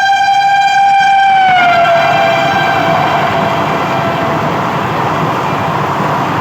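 An 8-coach Vande Bharat Express trainset sounds its horn as it runs through the station at speed. The steady horn chord drops in pitch about a second and a half in and dies away a few seconds later, leaving the loud rush of the train going by.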